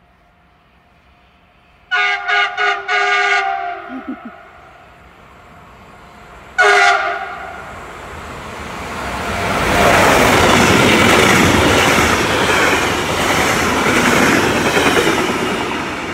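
Freight train's locomotive horn sounds in a quick series of about four short blasts, then one more short blast a few seconds later. The train then passes close by with a loud rumble and clatter of wheels on rails, which builds, holds and fades near the end.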